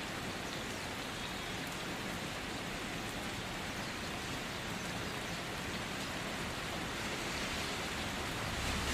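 Steady sizzling of food frying in a pan, an even crackling hiss that grows a little louder near the end.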